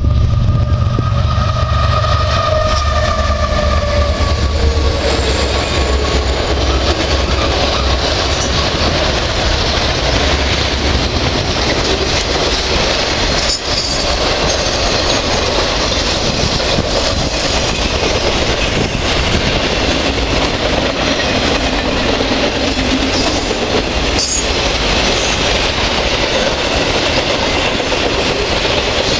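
Canadian Pacific freight train passing at speed. The locomotive's deep engine rumble fades over the first few seconds, and then a long string of freight cars rolls by with a steady roar of wheels on rail and a clickety-clack of wheel clicks.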